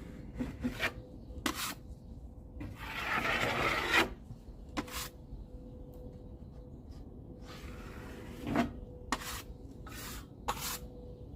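A drywall blade scraping and wiping joint compound over paper tape in an inside corner. One long stroke about three seconds in is the loudest, a shorter one comes near eight seconds, and short clicks of the blade fall in between.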